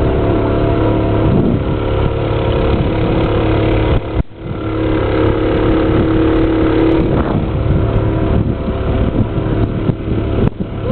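Johnson outboard motor running at a steady speed, pushing a small canal cruiser along, with a brief break in the sound about four seconds in.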